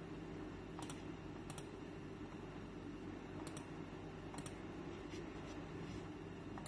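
A handful of separate computer mouse clicks, about five spread over several seconds, over a faint steady low hum.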